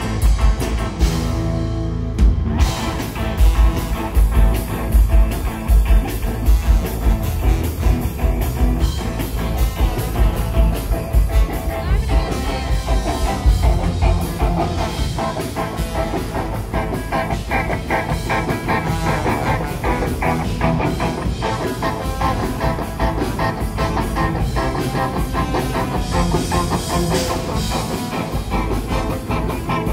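Live rock band playing loudly: electric guitars and bass over a drum kit keeping a steady beat, with a trombone in the mix.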